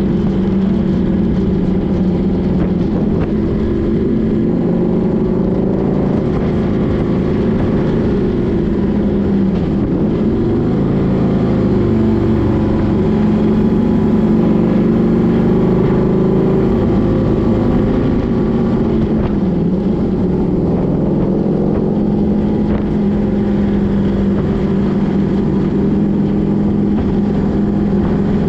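A motor vehicle's engine running steadily, its pitch dipping and coming back up about ten seconds in and again near nineteen seconds.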